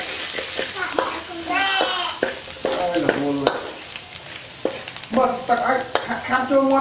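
Chopped garlic frying in oil in a metal wok, sizzling steadily while a metal spatula stirs it, with sharp clicks and scrapes of the spatula against the pan. Voices come in briefly in the background a few times.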